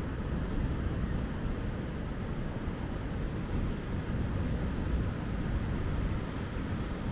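Steady low rumble of sea wind buffeting the microphone, mixed with the wash of surf on the beach, with no distinct events.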